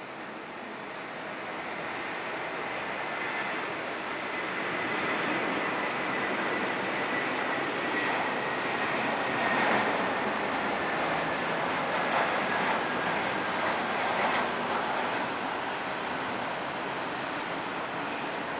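Airbus A321 jet engines passing on its landing approach: a steady rushing roar that grows louder to a peak around the middle, with a whine that falls slowly in pitch as the airliner goes by.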